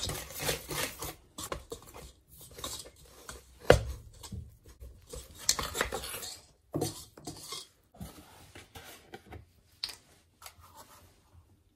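Metal wire whisk scraping and knocking against a stainless steel mixing bowl as it stirs a crumbly cake mixture. The strokes are irregular, with a sharp knock about four seconds in.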